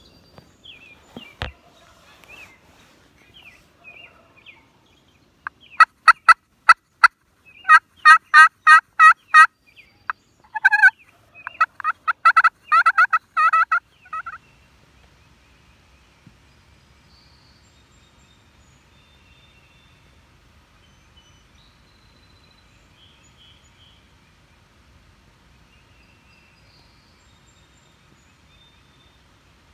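Loud turkey yelping: three runs of evenly spaced raspy notes, about four a second, over some eight seconds. After that only faint, distant high bird calls are heard.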